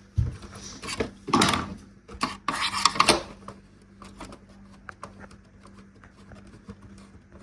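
Handling of a plastic stereo casing and screwdriver: a knock near the start, two scraping, rubbing noises in the first three seconds, then light clicks and taps.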